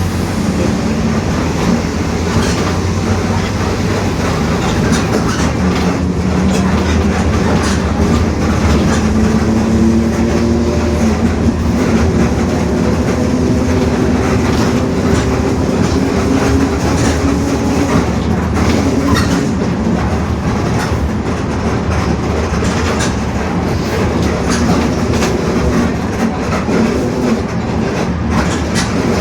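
Mercedes-Benz OF-1721 city bus driving, with its differential growling as a humming whine that drifts slowly in pitch over the diesel engine's running. Frequent rattles and clicks from the bus body come through throughout.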